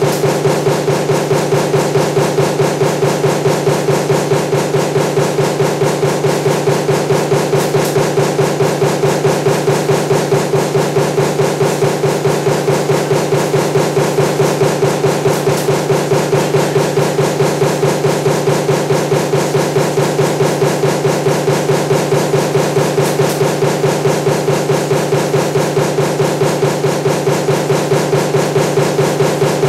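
Stamping press running a die for table fan motor parts, striking in a fast, even rhythm of repeated strokes over a steady machine hum.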